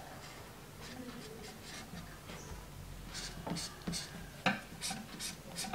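Marker pen drawing on white chart paper in short scratchy strokes. The strokes are faint at first and come more often and sharper in the second half.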